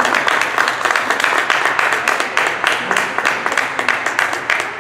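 A small audience applauding steadily, many overlapping hand claps.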